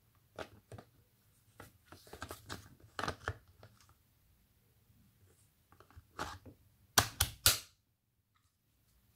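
Hard plastic scraping and clicking as an 18V Bosch Power4All battery pack is handled against a Bosch PSR 1800 LI-2 cordless drill's battery mount. About seven seconds in come three loud sharp plastic clacks as the pack is slid back on and snaps into place.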